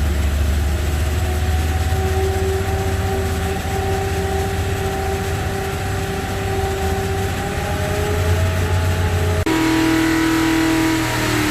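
Rebuilt 1969 Corvette race V8 running steadily on an engine dyno while it warms up. About nine and a half seconds in, the engine note changes abruptly to a different steady pitch.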